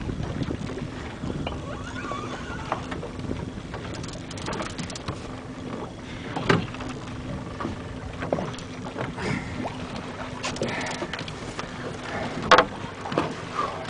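A boat's engine idling with a steady low hum, with water and wind noise and a few sharp knocks aboard, the loudest about six and a half and twelve and a half seconds in.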